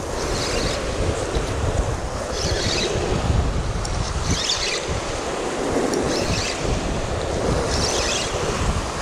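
Wind buffeting the microphone over sea surf, with a brief hiss of water about every two seconds.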